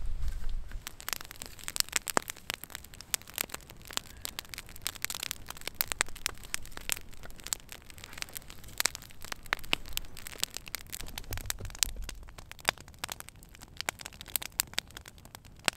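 Wood campfire crackling: irregular sharp pops and snaps over a faint hiss.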